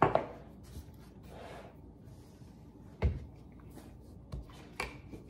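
Chapati dough being rolled and handled on a floured countertop: a faint, steady rubbing of rolling pin and hands on dough, with a knock at the start, a low thump about three seconds in and another knock near the end.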